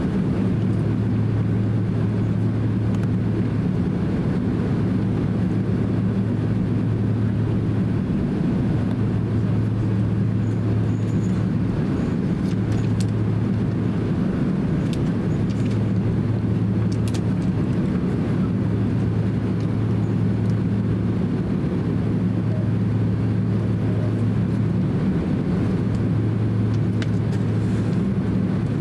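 Steady cabin drone of a Boeing 767-300 airliner taxiing at low engine power, heard from a passenger seat: a low hum that wavers now and then, with a few faint ticks.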